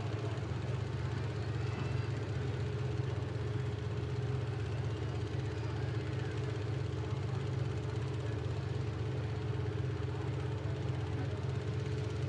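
Engines of full-size cars in a figure-8 derby race running together in a steady drone, with no sharp revving or crashes.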